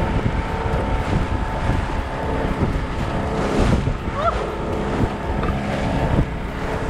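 Small outboard motor on an inflatable dinghy running steadily under way, with water rushing past the hull and wind buffeting the microphone.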